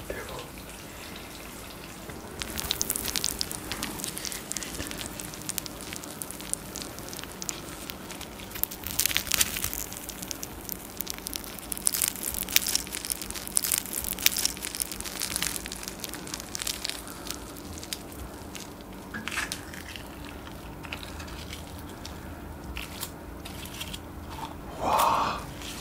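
Melted raclette cheese crackling and sizzling in irregular bursts on a hot half wheel, over a faint steady hum. Near the end the cheese is scraped off with a knife.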